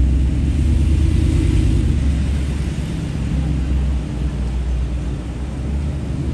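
City street traffic: a steady low rumble of vehicles.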